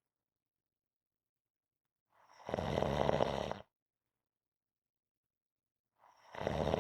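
A person snoring in a slow, steady rhythm: one rough snore lasting about a second and a half, and a second one starting near the end, about four seconds later, with silence between.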